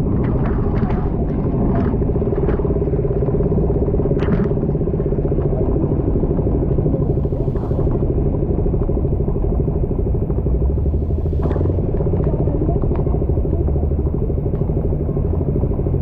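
Motorcycle running steadily under way, a constant engine drone with road and wind rumble and a few brief clicks.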